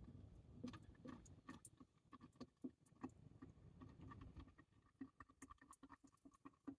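Faint, irregular small clicks and taps, scattered with no steady rhythm.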